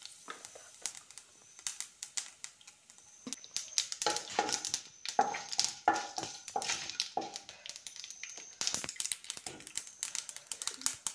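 Mustard seeds popping and spluttering in hot oil alongside frying urad dal: scattered sharp pops at first, growing thick from about three seconds in.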